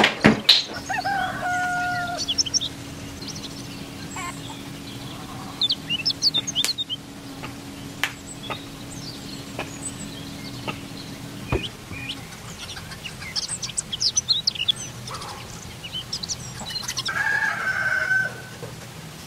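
Background bird calls: a chicken clucking and small birds chirping on and off, with a few sharp clicks from plastic parts being handled.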